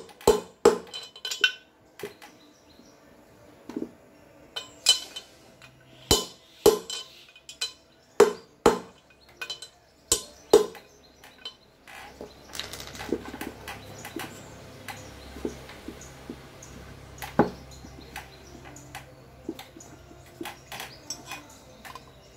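Mallet blows tapping a needle bearing into its seat in a Bajaj CT 100 aluminium gearbox casing: a series of sharp knocks with a metallic ring, often in pairs, for the first ten seconds or so. After that, lighter clinks and handling of the casing over a low steady hum, with one more knock about midway through the rest.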